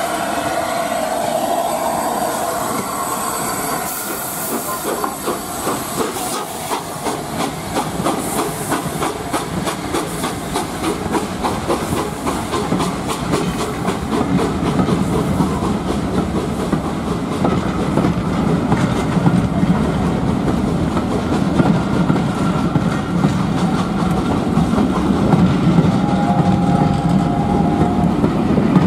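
LNER A4 three-cylinder Pacific steam locomotive 60009 'Union of South Africa' pulling away with its train, hissing steam at first, then exhaust beating in an even rhythm from about four seconds in. As the coaches roll past, the rumble and clickety-clack of their wheels grow louder, with a brief high tone near the end.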